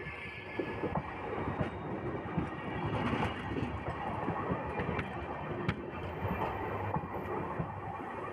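Freight train's wagons rolling past on the rail: a steady rumble of steel wheels on the track, broken by a few sharp clicks and knocks.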